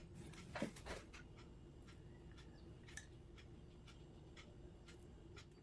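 Near silence with scattered faint light clicks of a kitchen utensil being handled while it is filled with dough. The clicks are a little louder in the first second or so.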